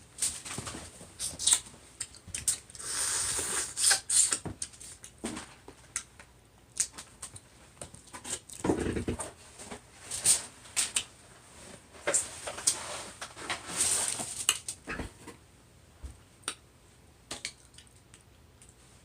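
Close-miked mukbang eating sounds of sauced seafood: wet chewing, smacking and squishing, with irregular sharp clicks and a few longer hissing stretches, one around three seconds in and another near fourteen seconds.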